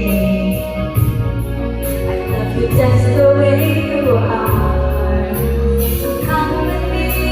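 Pop ballad music with a steady beat and a voice singing over it, heard in a large hall.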